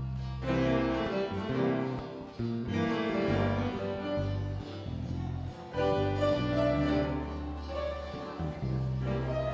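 Instrumental music from a small band: grand piano chords with an electric bass holding long low notes and an acoustic guitar.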